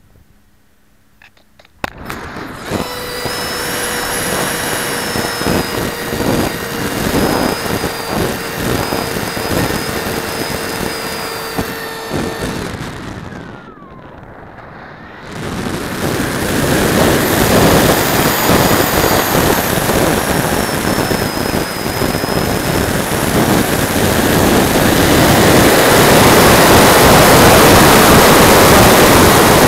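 A Radjet model's 3800kv brushless electric motor spinning a small 5x5 propeller at high revs, heard through its onboard keyfob camera. It starts suddenly about two seconds in and runs with a steady high whine and a rush of air. Around thirteen seconds in the whine falls away as the motor winds down. About three seconds later it comes back on, louder, mixed with wind rushing past in flight.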